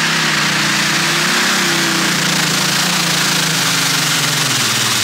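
Modified pulling tractor's engine running loud and steady on the track, a dense rushing exhaust noise over a low engine drone whose pitch drifts only slightly.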